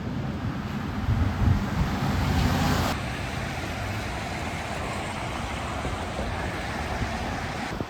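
A vehicle passes on a wet, snowy road, its tyres hissing louder for the first three seconds before the sound cuts off sharply. After that a steady rush of traffic and wind noise on the microphone continues.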